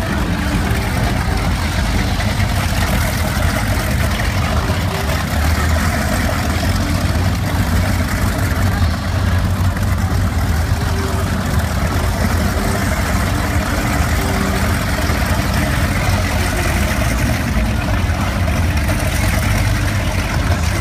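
Boat engines idling: a steady low rumble that holds level throughout, with faint voices in the background.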